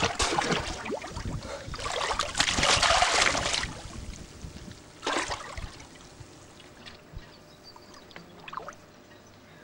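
Water splashing as a swimmer ducks and dives under beside a boat's hull, loudest about two to three and a half seconds in, with one shorter splash about five seconds in, then quieter.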